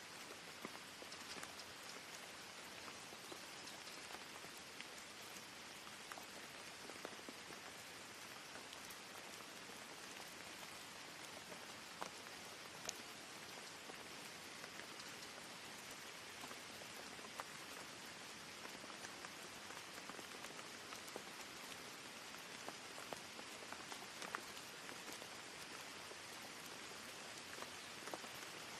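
Steady rain ambience used as white noise: an even hiss of rainfall with scattered single drops ticking through it.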